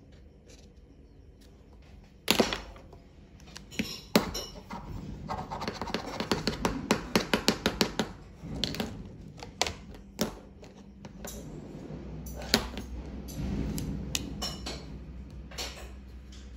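Plastic alcohol markers clicking and clattering as a marker is swapped: a sharp snap about two seconds in, a quick run of rattling taps a few seconds later, then scattered clicks.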